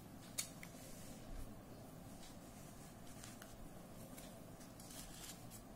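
Faint rustles and a few soft clicks of a sheet of paper being handled and slid across a desk, over a low steady room hum.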